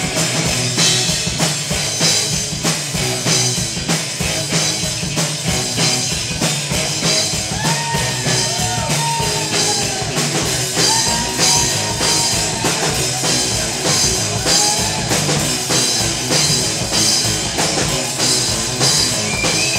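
Live rock band playing an instrumental passage between sung lines: drum kit and electric guitar, with a sliding melodic line over it midway.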